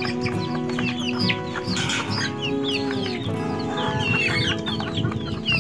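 A flock of young chickens peeping and clucking, many short high calls that fall in pitch, over background music with long held notes.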